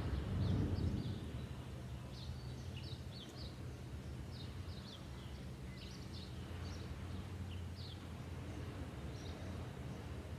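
Small birds chirping: many short, high, falling chirps scattered throughout, over a steady low rumble. A brief louder rush of noise comes in the first second.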